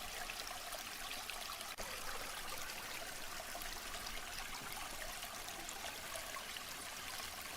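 Waterfall: a steady rush of falling water, a dense even hiss weighted toward the high end, with a momentary dropout about two seconds in.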